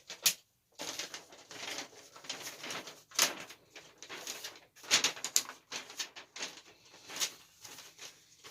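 Packaging being handled as box contents are taken out: irregular rustling and crinkling, with a few sharp clicks and snaps.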